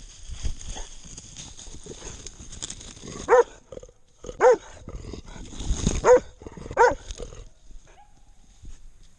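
A hunting dog barks four times, roughly a second apart, after a few seconds of scuffling, crackling noise.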